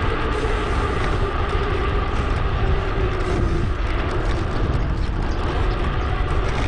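Steady wind rush over a helmet- or bike-mounted action-camera microphone, mixed with the hum of a mountain bike's tyres and drivetrain while riding, sped up to two and a half times normal speed.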